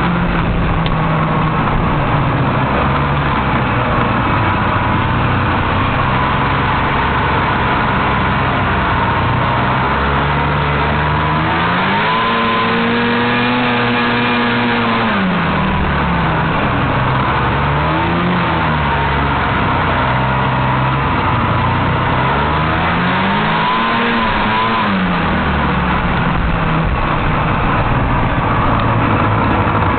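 Vintage Kawasaki Intruder snowmobile's two-stroke engine, heard from the seat while riding over snow. The engine revs up and eases off three times: a long climb held for a few seconds about a third of the way in, a short one soon after, and another a little later.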